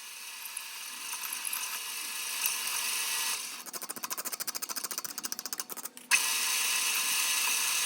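A machine tool, such as a metalworking mill or lathe, running with a steady high-pitched whine. About three and a half seconds in it changes to a rapid pulsing of about ten beats a second. Just after six seconds it switches abruptly back to the steady whine.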